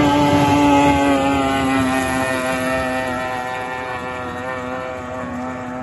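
Outboard motor of a racing speedboat running at full throttle: a loud, high engine whine that slowly drops in pitch and fades as the boat runs away across the water.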